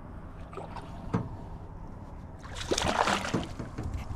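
Splash and slosh of water as a caught largemouth bass is released back over the side of a small boat, loudest for about a second near the end, with a few sharp knocks of handling before it.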